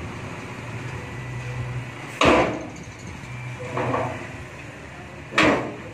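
Dump truck engine running steadily with its tipper bed raised, broken by two loud metal bangs, one about two seconds in and one near the end, and a softer knock between them, as the hanging tailgate swings and bangs against the body.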